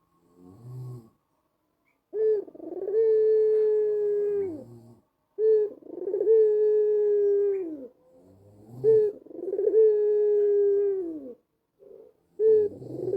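White collared dove (white Barbary dove) giving its long anggungan coo, four times in a row after a short low note. Each coo opens with a brief note, holds a steady pitch for a couple of seconds and falls away at the end.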